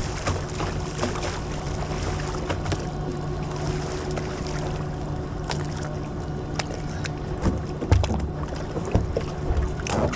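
Rushing whitewater on a canoe slalom course, with wind on the microphone and scattered knocks and bumps, a few louder ones near the end.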